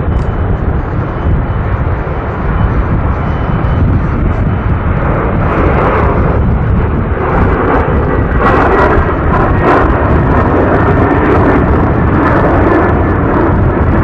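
Qantas Airbus A380's four Rolls-Royce Trent 900 jet engines at takeoff thrust as it climbs away, the roar growing louder about five seconds in, with crackling near the middle. Heavy wind buffeting on the microphone rumbles underneath.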